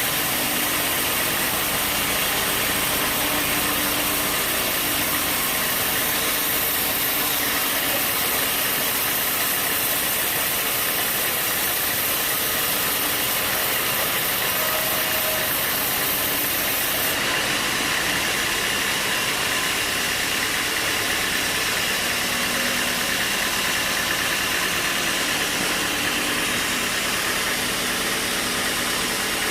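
Sawmill machinery running steadily, a dense mechanical noise. The highest hiss drops away about halfway through, while the middle of the sound grows a little stronger.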